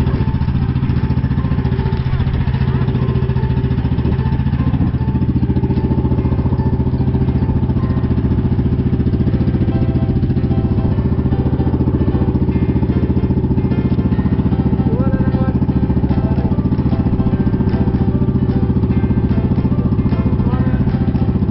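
A pump boat's inboard engine runs steadily at an even speed while the outrigger boat is under way, giving a constant low drone with a fast pulsing.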